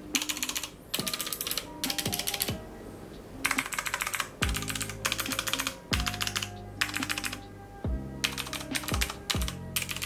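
Fast typing on a Digital Alliance MECA AIR mechanical keyboard with stock Outemu Blue clicky switches, in bursts of rapid keystroke clicks broken by short pauses. The switches sound like typical Outemu Blues.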